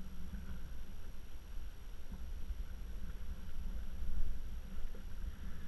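Uneven low rumble of open-sea ambience, wind and water around a kayak at sea, with no distinct event standing out.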